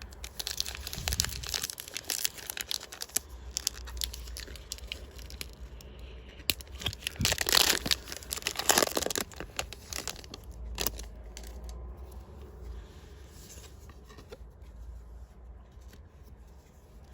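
A trading-card booster pack being torn open, its wrapper crinkling. The loudest tearing and crinkling comes about halfway through, followed by a sharp click and then softer rustling.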